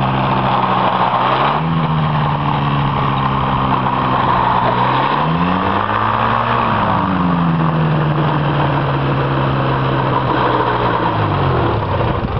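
Challenger II ultralight's engine and pusher propeller running at taxi idle, with a brief throttle-up about halfway through whose pitch rises and falls again. The engine is shut off near the end.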